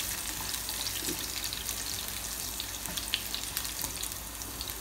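Chopped garlic, curry leaves and whole dried red chillies sizzling in hot oil in a nonstick pan as a silicone spatula stirs them, with scattered small crackles: a tadka being fried.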